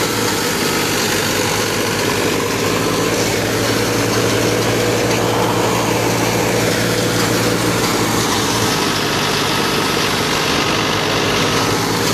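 New Holland Ghazi tractor's diesel engine running steadily as it drives a thresher, with the thresher adding a dense, continuous rushing rattle over the engine's even hum.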